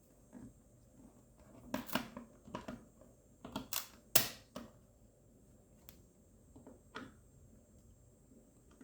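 An outlet's plastic faceplate and its screws being handled after unscrewing: a scattered series of light clicks and taps, the sharpest about four seconds in.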